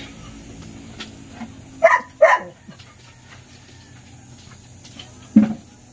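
Dog barking: two sharp barks in quick succession about two seconds in, then one deeper bark near the end.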